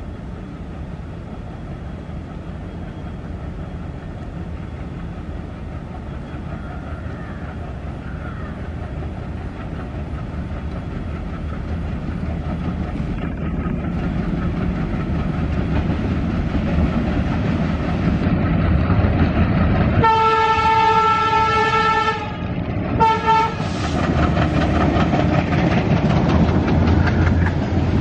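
Twin ALCO WDG-3A diesel locomotives hauling a BCNA covered-wagon freight train, the engine rumble growing louder as they approach. About twenty seconds in, the locomotive horn sounds one long blast and then a short one, and the wagons' wheels clatter over the rail joints as the train passes.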